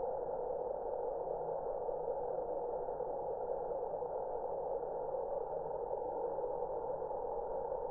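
A steady, low, hum-like drone of insects (cicadas) slowed down and pitched far down by slow-motion playback, even throughout with no distinct events.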